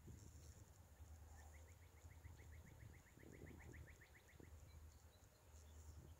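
Near silence with a faint bird trill: a run of about twenty quick, rising chirps, some six a second, starting about a second and a half in and lasting about three seconds, over a faint low rumble.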